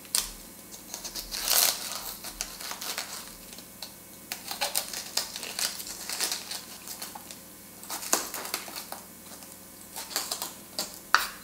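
Small knife cutting around the core of a raw green cabbage: irregular crisp crunching and snapping of the core and leaves.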